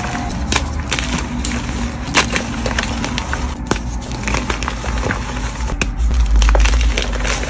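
Dyed gym chalk blocks being crushed by hand, giving an irregular run of sharp crunches and crackles over a low rumble that grows louder near the end.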